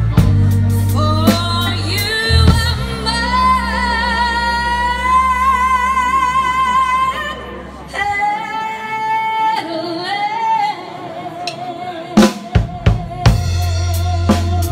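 A live band plays: a woman sings long held notes with vibrato over electric guitar, keyboards and bass. About eight seconds in the band thins out under her voice, and near the end a few drum hits bring the full band back in.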